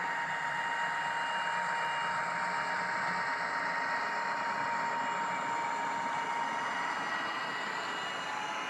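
H0-scale model train, a Roco ST44 diesel locomotive with Rivarossi double-deck coaches, running on the layout track. There is a steady high whine from the locomotive's drive over a continuous rolling noise from the wheels on the rails.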